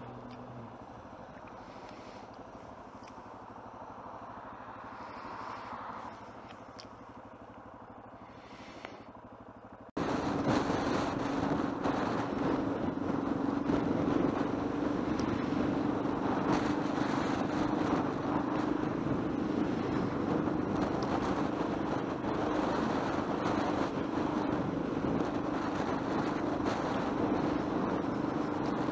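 Yamaha XT600E single-cylinder motorcycle engine running under way, with wind and road noise. It is fainter at first, then about ten seconds in it jumps abruptly to a loud, steady engine drone under the wind rush.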